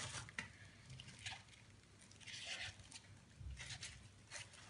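Faint rustling and light ticks of glue-coated paper being handled and smoothed over a plate mould, with a slightly longer rustle a little past halfway.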